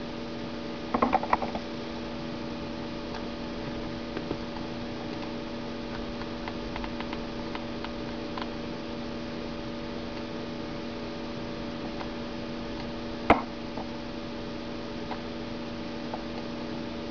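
Steady electrical hum made of several held tones. Over it come a short cluster of clicks about a second in, scattered faint ticks, and one sharper click about thirteen seconds in.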